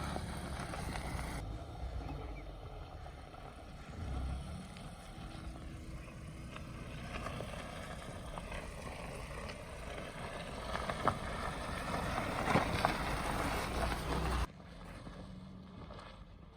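Petrol Mahindra Thar's engine running as the 4x4 is driven along a mud track, with wind on the microphone. A few sharp knocks come near the end, and the sound drops off suddenly shortly before the end.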